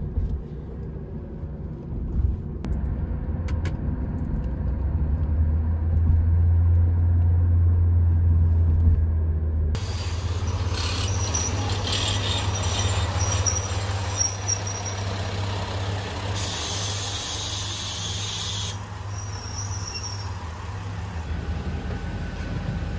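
Low steady rumble of a taxi on the road, heard from inside the cabin, then a diesel railcar running at a station platform, with a loud hiss of compressed air lasting about two seconds partway through.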